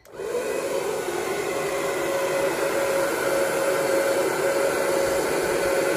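Hand-held hair dryer with a narrowed nozzle switched on and blowing steadily, a constant whir with a steady whine in it, aimed at wet pour paint to push it out into a bloom. It starts suddenly at full speed.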